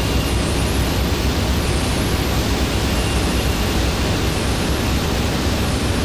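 Steady rush of surf breaking on a sandy beach, with wind buffeting the microphone.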